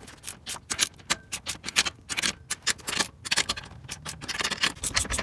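Hand ratchet wrench clicking in short quick runs as it is swung back and forth, tightening the sway bar's U-bolt nuts and end-link bolts.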